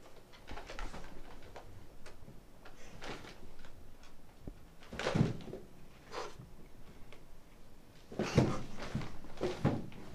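Wooden armchair knocking and scraping as a seated person hops it along a carpeted floor, in a cluster of loud knocks near the end. Before that, a few softer rustles and knocks as he handles a paper bag and shifts in the seat.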